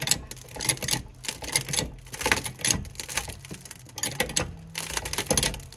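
Hydraulic floor jack being pumped by its handle to raise a car, with repeated uneven clicks and creaks. The creaking is the plywood under the jack crumbling as it presses down onto the gravel floor.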